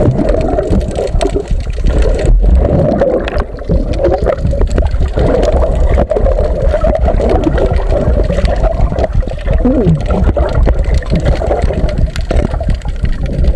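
Muffled underwater rumble and gurgling of seawater moving around a camera held underwater, with scattered small knocks.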